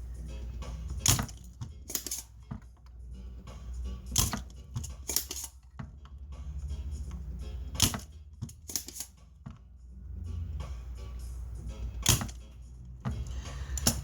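Irregular sharp clicks and taps from hand tools working on a car amplifier's circuit board during soldering repair, about a dozen over the stretch, over a steady low hum.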